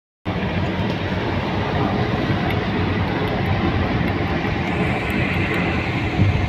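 Steady road and engine noise of a moving car, a low, even rumble with no change in pace.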